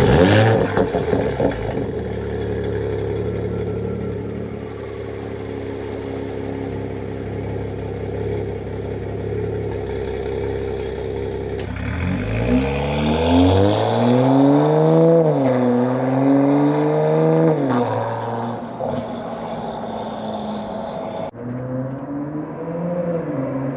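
MK5 Toyota Supra with an HKS titanium exhaust and catless downpipe firing up with a brief flare, then idling steadily. From about twelve seconds in it is revved several times, the exhaust note rising and falling, and it is revved again near the end.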